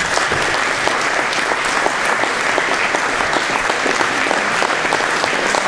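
An audience applauding: many hands clapping densely and at a steady level.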